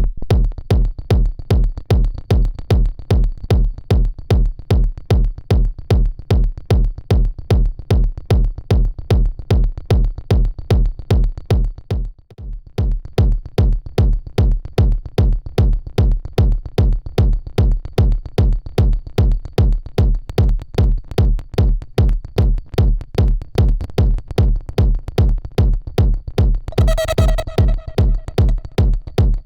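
Techno loop playing from Ableton Live: a steady, evenly spaced electronic kick drum about twice a second, with a brief break about twelve seconds in. Near the end a pitched synth tone comes in over the kicks.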